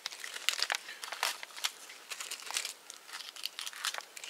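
Dry bark being peeled and torn by hand off a dead standing birch: a run of irregular crackles and short tearing rasps.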